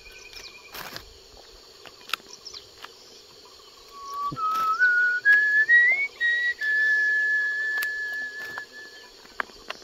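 A man whistling: a few short notes stepping upward in pitch, then one long held note.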